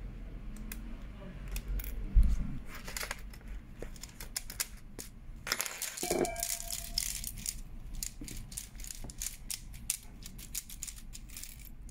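Hard plastic clicking and rattling from a Lenovo desktop keyboard as its keycaps are pried off and the bare keyboard frame is handled. There is a dull knock about two seconds in and a brief squeak about six seconds in.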